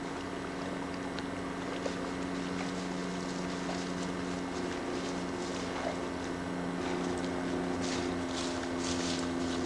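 A steady low engine drone with a few brief hisses of wind or rustle near the end.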